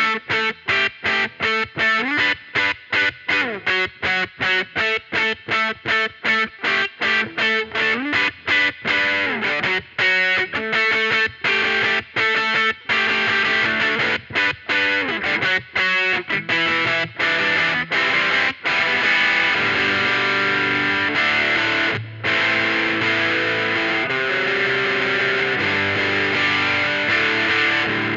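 Electric guitar played through distortion and effects pedals: short, choppy repeated notes with a few slides for about the first eighteen seconds, then sustained distorted chords.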